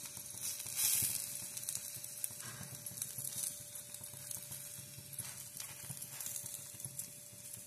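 Onion-stuffed paratha sizzling in ghee on a hot tawa, a steady hiss that is loudest about a second in, with a few light knocks and scrapes of a spoon spreading the ghee.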